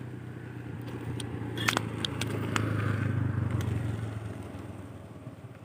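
A motor vehicle passing by, its engine hum growing louder until about halfway and then fading away. A few sharp clicks sound in the middle.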